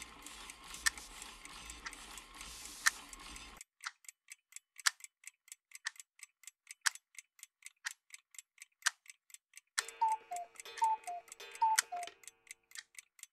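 Clock ticking, at first over a steady hiss that cuts off suddenly about three and a half seconds in; after that the ticks are clean and quicker, several a second with a louder one about each second. Near the end a short chime plays a falling two-note figure three times over a held lower tone.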